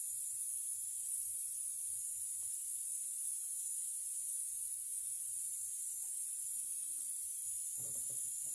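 Steady high-pitched hiss of steam from a half-horsepower Sipp steam engine, with a faint low pulsing underneath.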